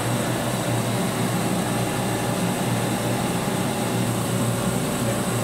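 Steady drone of running machinery: a low hum under an even, fan-like rushing noise.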